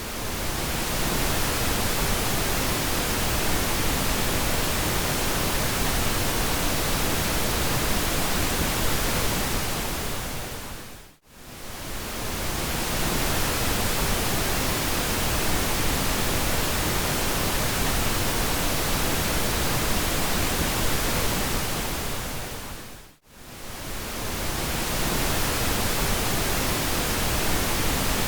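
Synthetic pink noise: a steady, even hiss across the whole range that briefly fades almost to silence and back twice, about every twelve seconds.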